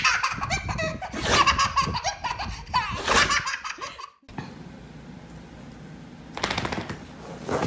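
A baby laughing hard in repeated belly-laugh bursts for about four seconds, then cut off abruptly. Quieter room noise follows, with a brief rustling noise near the end.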